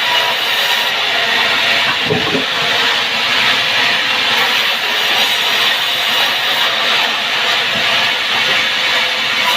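Sawmill saw cutting through timber: a steady, loud hissing noise of sawing throughout, with a brief low rumble about two seconds in.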